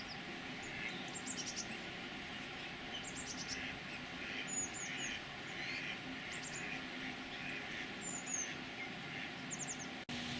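Small songbirds chirping and calling. Short runs of very high, quickly falling notes repeat every second or two, with softer chirps between them.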